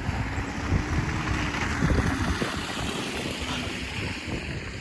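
A vehicle passing on a slushy road, its tyres hissing through the slush, swelling about two seconds in and fading. Wind buffets the microphone throughout.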